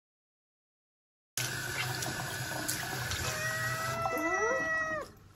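Silence for about the first second and a half, then the steady hiss of running tap water. Over it a tabby-and-white cat gives one long meow, about two seconds, level in pitch and dropping at the end.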